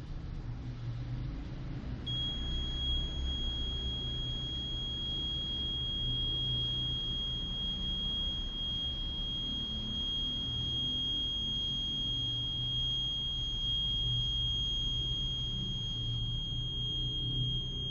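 Boiling water detector's alarm giving one steady high-pitched tone, starting about two seconds in and holding without a break, over a low rumble. The tone signals that the water has reached the boil.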